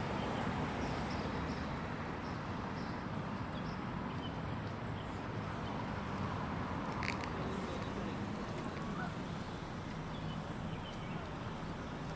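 Steady outdoor background noise with a few faint chirps and one sharp click about seven seconds in.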